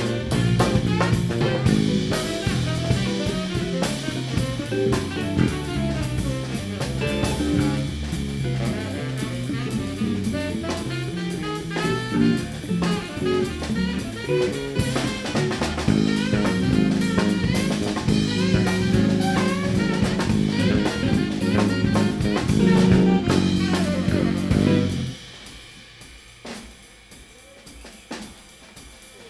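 Jazz quartet playing live, with the drum kit prominent. About 25 seconds in the rest of the band stops abruptly, leaving the drum kit playing softly on its own.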